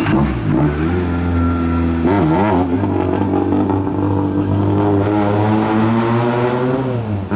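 Hill-climb race car engine accelerating hard: its pitch drops at a gear change right at the start, wavers briefly, then climbs steadily for several seconds before dropping again at the next upshift near the end.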